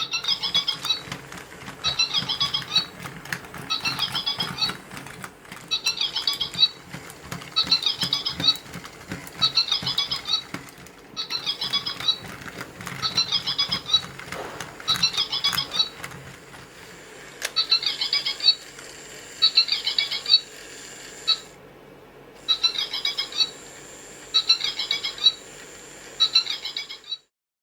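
Battery toy rabbit playing its electronic sound effect: a high, warbling chirp that repeats about every two seconds. Clicking and a low hum run underneath for the first half or so. It cuts off shortly before the end.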